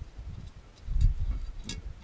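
Light metallic ticks of a hand tool working the blade mounting bolt under a garden tractor's mower deck, with a low dull knocking swelling about a second in.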